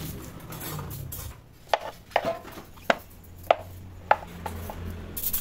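Knife chopping on a cutting board: a quiet first second and a half, then a run of about seven sharp chops, roughly one every half second.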